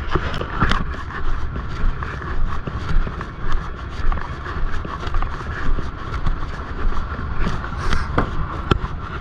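Tractor-trailer's diesel engine running steadily, with scattered clicks and knocks over it.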